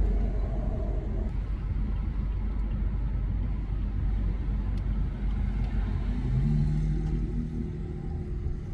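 Steady low rumble of a car driving, engine and road noise heard from inside the cabin. About six seconds in, a steady low hum joins it.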